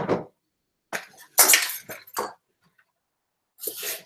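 Kitchen clatter: a sharp knock at the start, then several short clinking, crackling noises as utensils are handled and a large cabbage leaf is cut.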